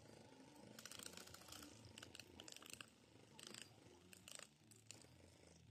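Faint airsoft gunfire: short bursts of quick sharp clicks and snaps, coming roughly every second, over a low murmur.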